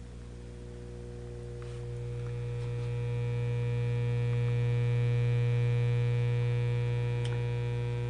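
Monarch vacuum-tube radio humming through its speaker as its tubes warm up: a steady low mains hum with overtones that swells over the first few seconds and then holds. It is a classic filter hum, the sign of dried-out electrolytic filter capacitors, and is not super bad but still very annoying.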